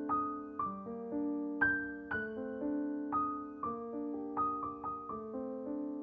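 Background music: a gentle solo piano piece, notes and chords struck about every half second and left to ring.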